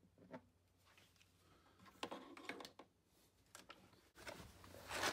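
Faint clicks and knocks of hard plastic being handled, then a scraping rustle that builds near the end as the plastic Packout base plate is lifted and slid off the plywood box.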